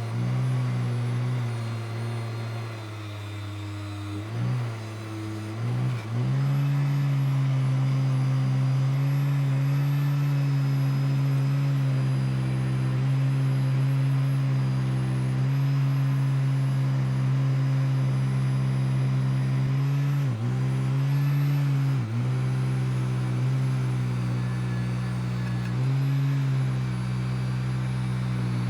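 Electric motor running with a steady, strong hum. Its pitch sags and recovers a few times, as if the motor is briefly loaded or switched off and on.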